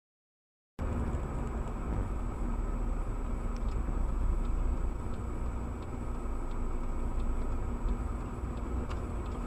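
A car driving, heard from inside the cabin through a dashcam: a steady low engine and road rumble that starts abruptly about a second in, with a faint steady high-pitched whine over it.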